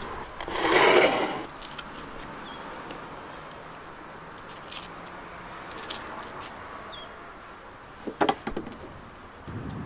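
Small knife and dry onion skins while onions are peeled by hand: a few sharp clicks and a crackling cluster near the end, after a louder rustling scrape about a second in. Faint bird chirps twice.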